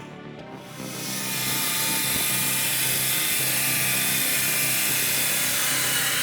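A machine running steadily, setting in about a second in.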